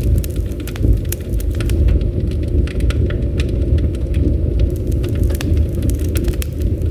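Campfire burning, with frequent sharp crackles and pops of the wood over a steady low rush of flame.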